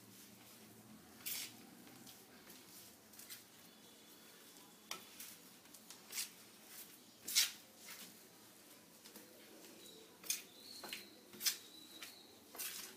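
A spoon scraping and clinking against a stainless steel plate while mixing pearl millet flour with jaggery water into a crumbly dough, with irregular sharp clicks.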